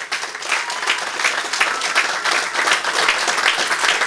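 Audience applauding with many hands clapping, swelling within the first second and then holding steady.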